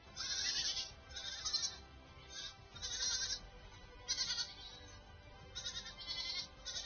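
Goats bleating, a string of short, irregularly spaced calls, over background music.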